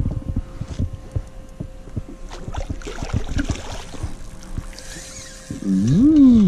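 Small scattered knocks and clicks of handling in a fishing boat over a faint steady hum, then near the end a man's long drawn-out exclamation, its pitch rising and then falling.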